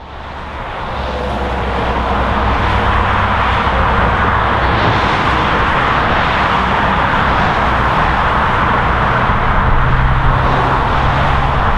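Steady highway traffic noise: cars, trucks and motorcycles passing continuously as a dense roar of tyres and engines, with a low engine hum underneath. It fades in over the first two seconds and then holds level.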